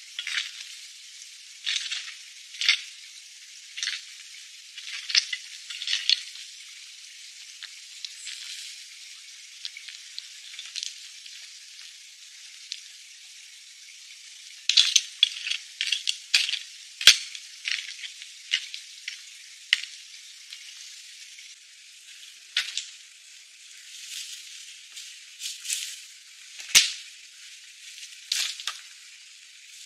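Irregular scrapes and crunches of a hand tool digging into stony soil, some strokes sharp and clattering, over a steady thin hiss.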